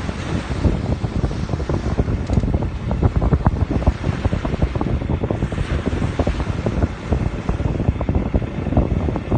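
Wind buffeting the microphone: a loud, gusty low rumble with uneven thumps throughout.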